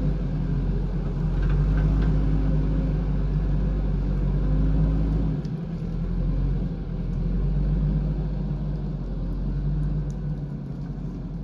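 Diesel engine of a JCB backhoe loader running under load, a steady low rumble that swells and eases, dipping briefly about five and a half seconds in.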